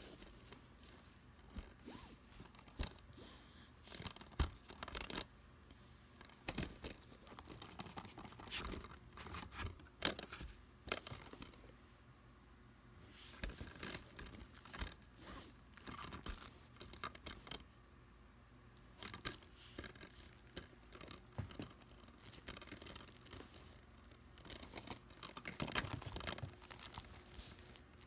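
A plastic DVD case being handled and turned over in the hands: irregular rustling and clicks, on and off.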